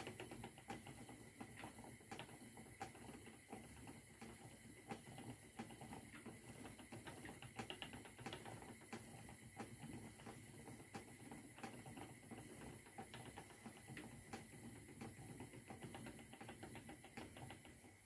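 Faint, steady light clicking from a wooden spinning wheel running while yarn is plied, about one to two clicks a second.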